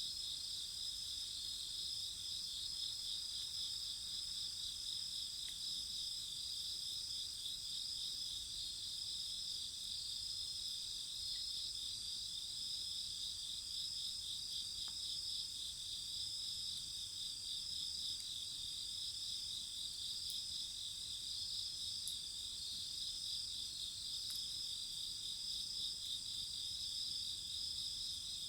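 Chorus of crickets and other insects chirping steadily, several pulsing high-pitched trills overlapping, with a few faint isolated pops.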